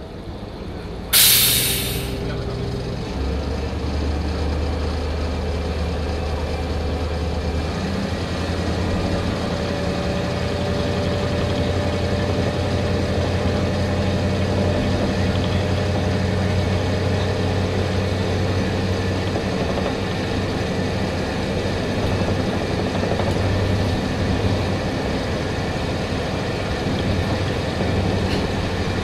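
Inside a Kanto Railway KiHa 005 diesel railcar: a short, loud blast of compressed air about a second in, then the DMH17C straight-eight diesel engine's low drone, which grows gradually louder as the railcar runs under power.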